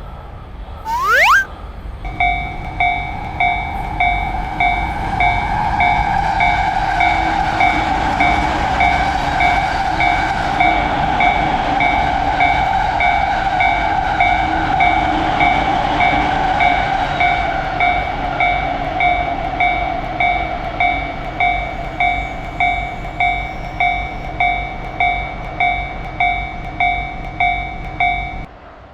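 Japanese railroad crossing alarm ringing its steady 'kan kan' at about two strikes a second, stopping near the end. A train passes through the middle, its running noise swelling and then fading.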